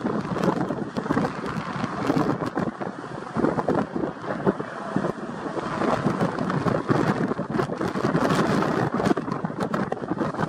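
The three Pratt & Whitney PW4460 turbofan engines of a McDonnell Douglas MD-11F rumble during its landing roll. Gusty wind buffets the microphone over it, in uneven swells and thumps.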